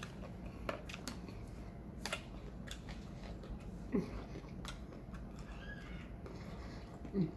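Close-miked chewing and mouth sounds of someone eating spinach salad: scattered crisp clicks and smacks, with two short low throaty sounds falling in pitch, one about halfway and one near the end.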